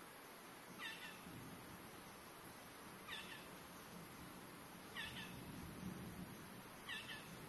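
An animal call, a quick double or triple note, repeated about every two seconds over a steady high hiss.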